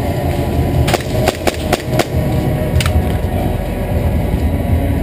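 A quick, irregular run of five or six sharp snaps of airsoft gunfire, between about one and three seconds in, over a steady low rumble.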